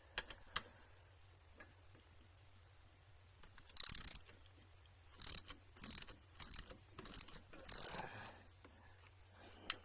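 Small ratchet wrench clicking in short, irregular bursts while bolts are being loosened, with metal tool clicks in between.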